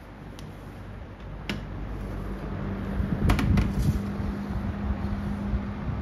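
Lakewood 200 20-inch box fan: a click about a second and a half in, then the fan's steady motor buzz comes in and its rushing air grows louder. A few sharp knocks of the cabinet being handled come a little after three seconds in.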